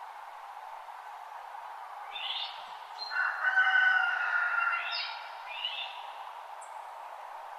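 Birds calling in a dawn chorus: two short sweeping chirps, and about three seconds in a longer, louder call of several held tones, over a steady background hiss.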